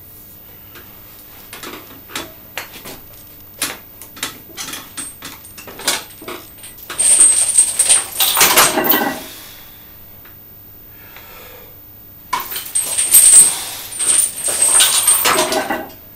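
Steel lifting chains hanging from a loaded barbell, clinking as the bench press moves. It starts as scattered single clinks, then two long stretches of dense metallic rattling, a few seconds apart, as the links pile onto and lift off the floor.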